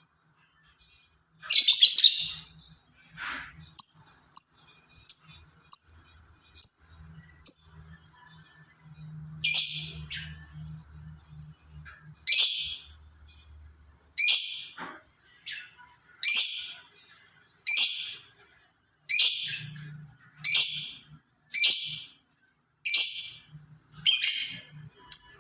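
Songbird chirping: loud, sharp, high chirps repeated roughly once a second, over a thin steady high tone held for long stretches.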